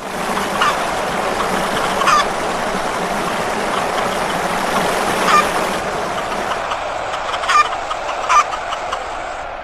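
A large flock of chickens clucking together in a dense, steady din, with about five louder single squawks standing out.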